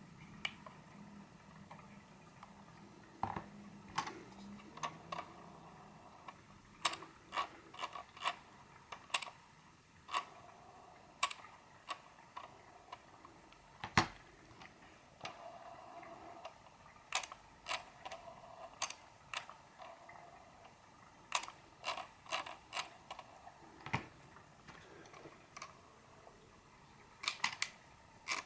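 Computer mouse scroll wheel and middle button clicking: irregular sharp clicks, some single and some in quick runs of three or four.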